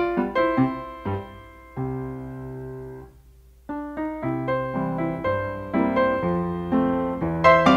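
Background piano music: single struck notes and chords, with a held chord that fades to a brief lull about three seconds in before the playing resumes.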